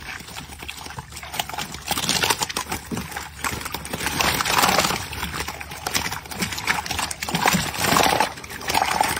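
Tilapia thrashing in a net bag in the bottom of a wooden boat: irregular wet slaps, splashing and knocks against the hull.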